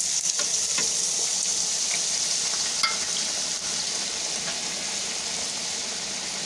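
Raw potato sticks deep-frying in hot oil in a kadhai, just after being dropped in: a loud, steady sizzle that eases slightly as it goes on. A few light clinks of metal against the pan, one ringing briefly about three seconds in.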